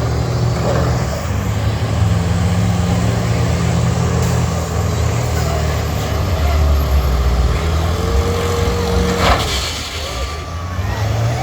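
School bus engines running and revving in a demolition derby, their pitch rising and falling, with a sudden loud impact about nine seconds in.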